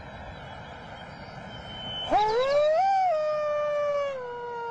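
A man howling through cupped hands in imitation of a wolf, a call meant to draw a reply from a wild wolf. One long howl begins about two seconds in, rises quickly to a peak, then is held while slowly sliding lower.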